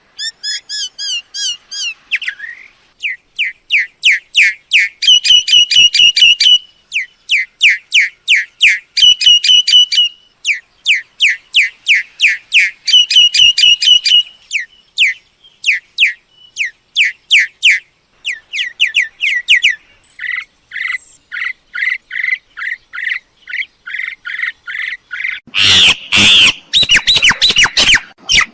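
Myna calling: bouts of rapid, repeated short whistled notes, several a second, each sliding downward, with loud harsh squawks about three-quarters of the way through.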